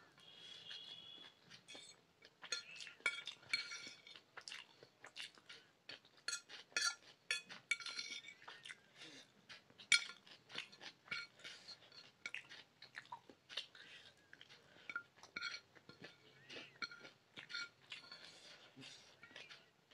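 Metal fork clinking and scraping against a ceramic plate while pasta is scooped up, many short ringing clinks at an irregular pace, with chewing in between.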